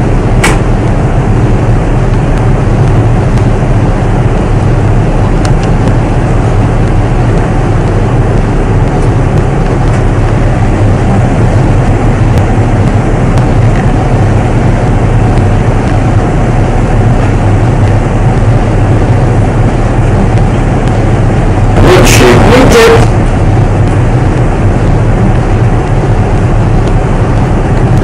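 Steady, loud low hum and rumble of ship's engines and machinery running, with a brief louder burst about 22 seconds in.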